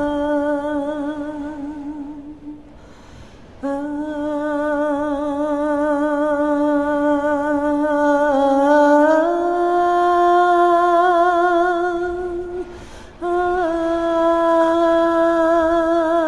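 A woman's unaccompanied voice humming a slow, wordless melody in long held notes with vibrato, breaking off twice for breath.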